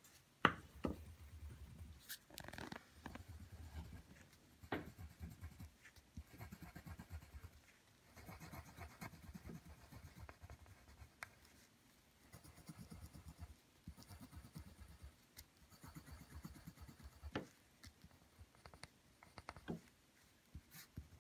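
Faint scratching of a colored pencil on paper, coloring in small circles in patches of quick back-and-forth strokes with short pauses between, and a few sharp clicks.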